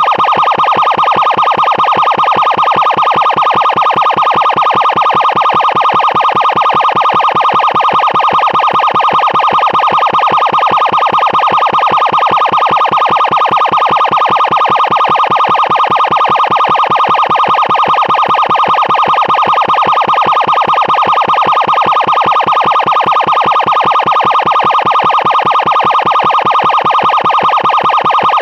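Extremely loud electronic emergency siren giving a rapid, even pulsing tone, several short blasts a second, held at one pitch.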